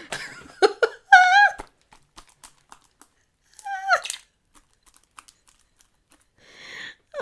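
Slime being squeezed and pulled by hand, with soft crackles and clicks and a few short high, wavering squeaks about a second in and again near four seconds.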